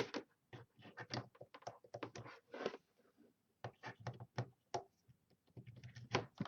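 A plastic power adapter and its cord being handled: a quick, irregular run of clicks and taps, with a short pause about three seconds in.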